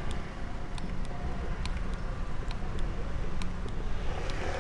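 Steady low outdoor rumble like street traffic, with scattered sharp ticks through it.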